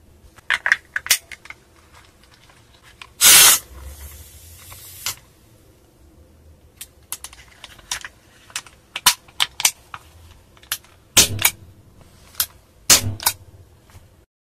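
CO2 capsule being fitted into an air pistol: a short, sharp hiss of gas about three seconds in as the capsule is pierced, dying away over the next second or two. Around it, small clicks of the parts being handled, then a run of clicks and snaps from the pistol's mechanism, two of them louder near the end.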